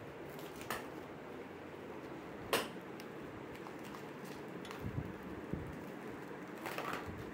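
Parts of a toddler's tricycle being handled, the plastic-wrapped handlebar and fork: scattered light clicks and knocks, the sharpest about two and a half seconds in, over a steady background hum.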